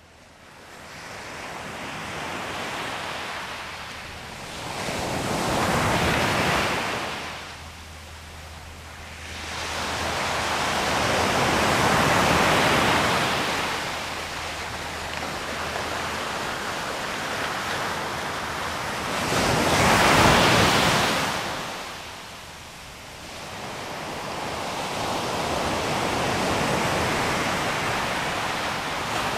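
Ocean surf on a sandy beach: waves swell and fall back in slow surges, loudest about six, twelve and twenty seconds in.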